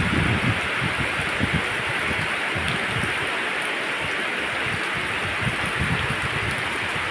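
Heavy rain falling on a wet road and grass, a steady even hiss, with irregular low rumbling that comes and goes underneath.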